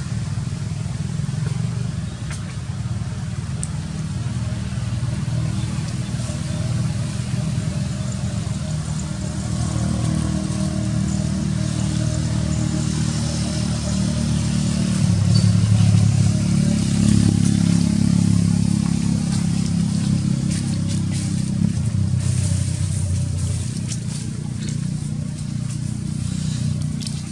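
Low, steady motor-vehicle engine rumble that grows louder about halfway through and eases off again towards the end.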